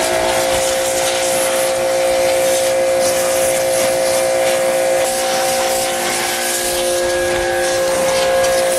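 Pressure washer running, its jet spraying a boiled goat skull on wet concrete to knock the last bits of tissue off: an even hiss of spray over a steady machine hum.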